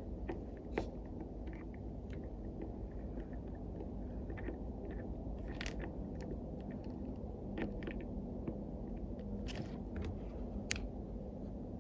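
Scattered small clicks and taps of tiny repair tools and screws being handled on a phone during a screen repair, over a steady low background hum.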